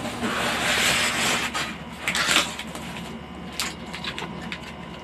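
Plastic packaging rustling and crinkling as items are handled in a cardboard printer box, followed by a few light clicks and taps.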